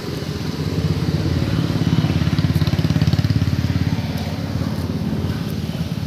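A motorcycle engine with a low, rapid pulsing exhaust note, growing louder to a peak about midway and then fading, like a bike passing close by.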